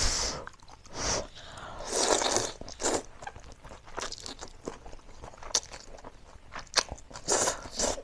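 A person slurping and chewing spicy Korean instant noodles close to a clip-on microphone: loud slurps about two seconds in and again near the end, with wet chewing and small mouth clicks in between.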